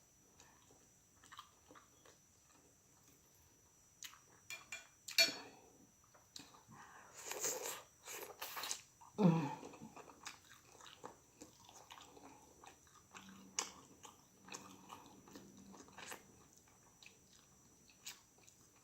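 A person chewing and biting into tender pork chop and sautéed vegetables, with scattered mouth clicks and smacks and a few louder bursts. There is a brief falling vocal sound about nine seconds in.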